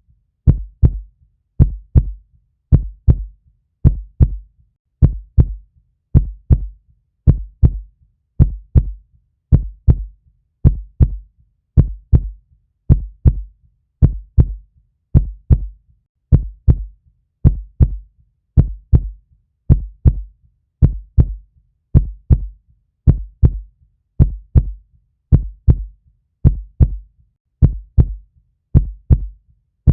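Heartbeat, a low double thump (lub-dub) repeating in a slow, steady rhythm of just under one beat a second.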